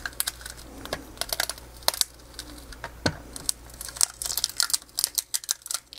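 Irregular crackling with many sharp clicks as the metal cover of a Dell laptop battery pack is pulled away from its plastic frame, the glue and snap clips holding it giving way.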